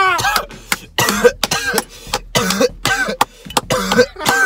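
A man coughing and clearing his throat in about ten short, hard bursts after a large bong hit, with laughter mixed in.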